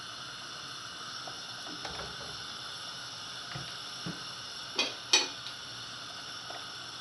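Meat in a pot of hot water on a gas stove, being blanched before the first water is poured off: a steady hiss. A few faint taps, then two sharp metal clinks close together about five seconds in, a spoon knocking the enamel pot.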